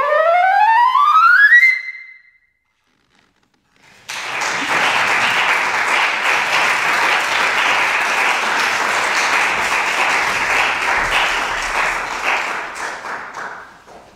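Solo concert flute playing a fast rising run up to a high final note that stops about two seconds in. After a short silence, an audience applauds for about ten seconds, fading out near the end.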